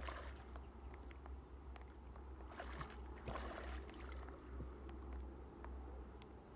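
Bare feet wading and sloshing through shallow standing water, with a few brief splashes, over a steady low rumble of wind on the microphone.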